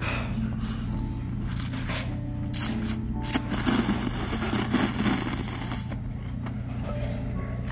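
A person slurping janchi-guksu noodles off metal chopsticks: a few short mouth smacks and clicks, then one long, noisy slurp starting about three and a half seconds in and lasting a couple of seconds.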